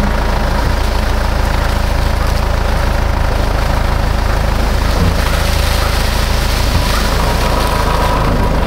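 Farm tractor with a front-end loader, its engine running steadily.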